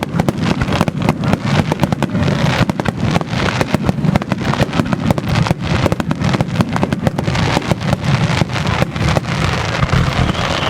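Fireworks display: a rapid, continuous barrage of firework bangs and crackles, many a second, over a steady low rumble.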